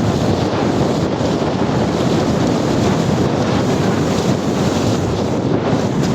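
Steady wind buffeting the microphone over rushing water, aboard a paraw, a traditional Filipino double-outrigger sailboat, under sail.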